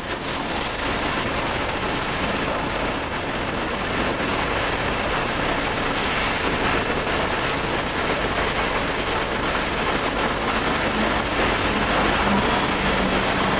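Steady, even machinery noise with no distinct strokes, a faint hum coming in near the end.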